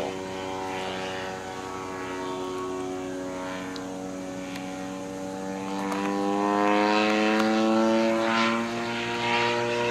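Radio-controlled model airplane's engine and propeller running in flight, a steady drone that rises in pitch and gets louder about six seconds in.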